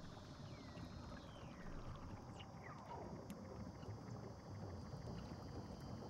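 Faint underwater ambience beneath Antarctic sea ice, with a low steady rumble. Between about one and three seconds in come two or three whistle-like calls sliding down in pitch, typical of Weddell seal calls.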